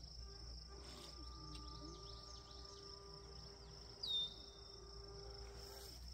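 Steady chirring of crickets or other insects, with the faint, slightly wavering hum of the Pro Boat Jet Jam RC jet boat's electric motor out on the water. A short falling chirp about four seconds in.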